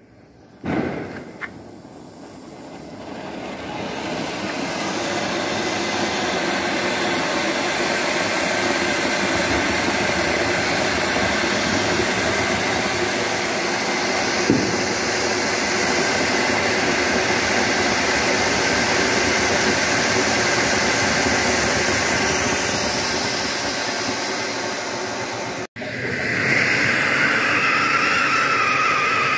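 Ground fountain fireworks spraying sparks with a steady, loud hissing rush that builds up over the first few seconds. A short pop comes just under a second in, and a brief crack comes around the middle. After a sudden break near the end, another fountain hisses with a high whistle over it.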